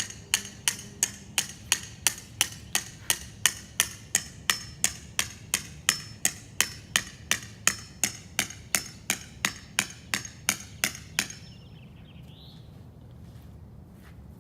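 Steady hammering, about three sharp ringing blows a second, stopping abruptly about 11 seconds in.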